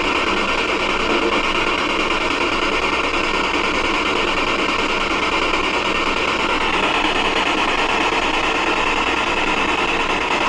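Steady, loud hiss of static, with no clear voice or distinct event in it.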